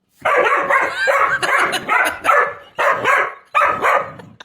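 A dog barking and yipping loudly in quick repeated outbursts, with short breaks between the last few.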